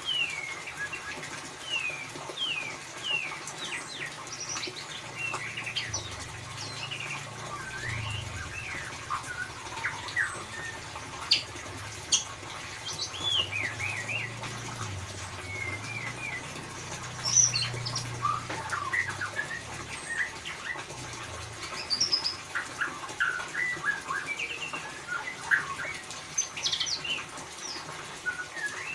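White-rumped shama (murai batu) giving its rapid ngeriwik chatter: a stream of short, sharply falling chirps and quick notes, some much louder than others.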